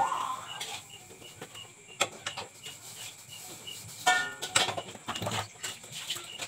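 Pots and bowls knocking and clattering against each other and a basin as they are washed by hand, a few sharp knocks with a busier clatter about four seconds in. Behind it a faint high chirp repeats about three times a second.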